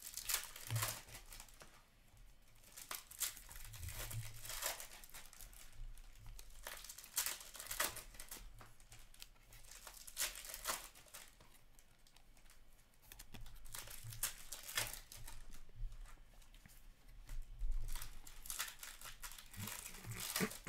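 Upper Deck hockey trading cards being flipped through by hand, the glossy card stock sliding and flicking off the stack in short, irregularly spaced swishes.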